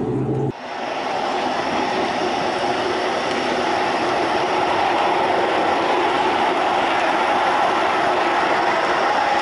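HO-scale model train running along its track close to the microphone, a steady, even rolling noise of wheels on rail. It starts abruptly about half a second in, replacing a low hum, and rises slightly before holding steady.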